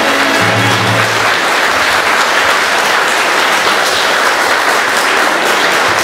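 Audience applauding steadily, with background music under it; a low bass note from the music is heard in the first second or so.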